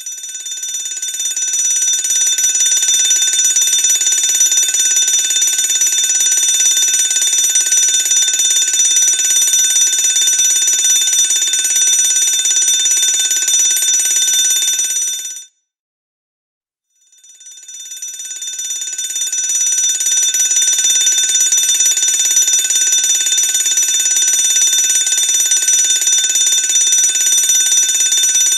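Electric fire alarm bell ringing continuously. It builds up over a second or two, cuts off suddenly after about fifteen seconds, and after a second and a half of silence starts again and builds back up to full ringing.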